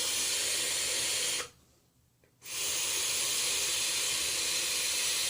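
Air being drawn through a vape tank's airflow holes in long pulls, priming the freshly wicked Atlantis coil's cotton with juice: a steady hiss that stops about a second and a half in, then starts again after a short pause.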